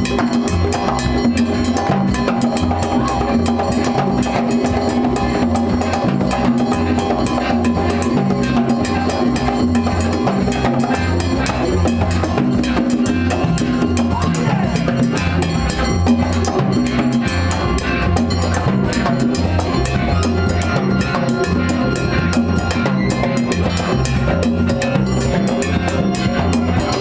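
A band playing an upbeat tune, with a drum kit keeping a steady beat.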